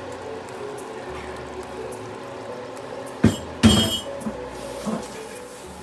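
A sharp metallic knock about three seconds in, then a ringing clatter of metal cookware on the stovetop, followed by two lighter knocks.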